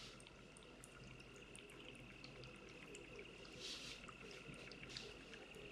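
Faint bubbling with small scattered pops as air bubbles rise through the water in an acrylic-tube bubble lamp, fed by a small 5-volt aquarium air compressor. A faint steady high whine runs underneath.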